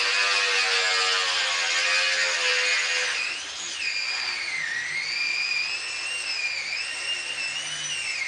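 Power tool with a diamond core bit drilling into a granite slab. About three seconds in, the lower motor note gives way to a high, wavering whine.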